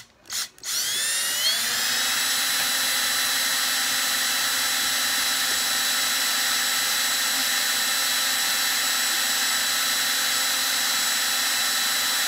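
Cordless drill: two quick trigger blips, then the motor spins up with a rising whine and runs at a steady speed. It is drilling a screw hole through a flattened steel nail hook held on a wooden block.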